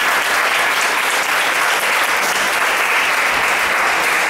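Spectators applauding, a dense steady clapping.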